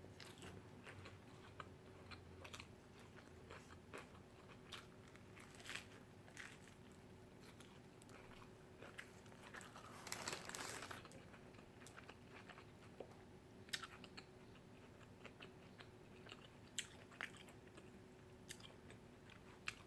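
Faint, close-miked mouth sounds of a person eating: chewing and biting with scattered small clicks, and a louder crunch or rustle about ten seconds in.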